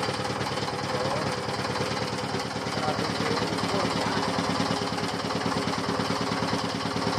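Small engine of a meat-and-fish grinding machine running steadily, with a fast, even beat.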